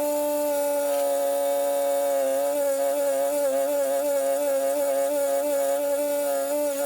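Electric buffing wheel motor running with a steady, even hum whose pitch wavers slightly, as a brass part is buffed against it.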